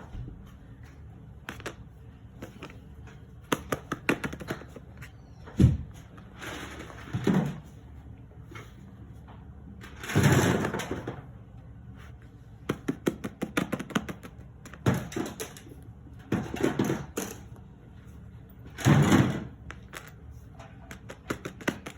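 Handling noises: irregular sharp clicks and several rustling bursts of about a second each, a few seconds apart.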